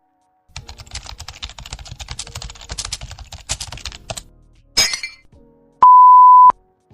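Rapid computer keyboard typing, a fast clatter of key clicks lasting about three and a half seconds, then a short burst. Near the end comes a loud steady beep of under a second, like a censor bleep.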